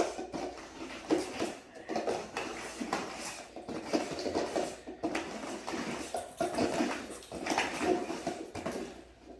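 Golden retriever searching cups for a hidden treat: irregular knocks, scrapes and rustles as it nudges the cups around.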